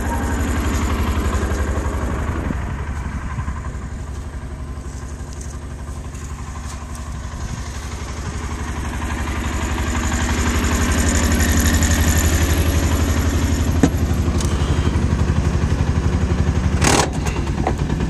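Engine of a utility vehicle (a ranch "mule") running steadily as it drives along, a little quieter for a few seconds and then louder about ten seconds in. There is a sharp click about fourteen seconds in and a brief clatter near the end.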